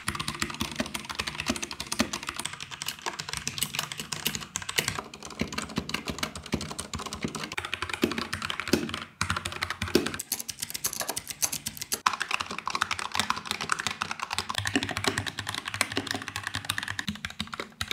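Fast typing on a succession of computer keyboards, a dense run of key clicks whose sound changes a few times as one keyboard gives way to the next.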